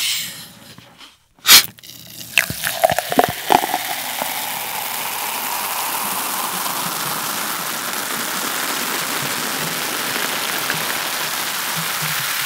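Plastic Coca-Cola bottle opened with a short, sharp hiss of escaping gas about a second and a half in, followed by a few clicks. Then cola is poured into a glass: a steady gush of pouring and fizzing carbonation.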